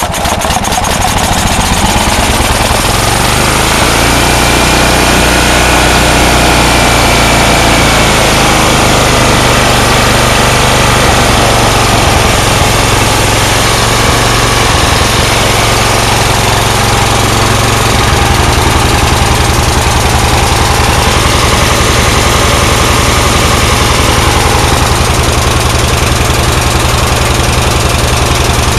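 Tecumseh small engine on a Yard Works go-kart running loud and steady just after a cold start. Its note wavers in the first several seconds, then settles into a more even beat about two-thirds of the way through.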